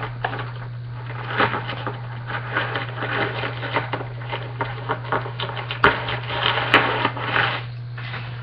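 Hands opening a sealed cardboard trading-card box: uneven rustling and scraping of cardboard and wrapping, with two sharp clicks about two-thirds of the way through. A steady low hum runs underneath.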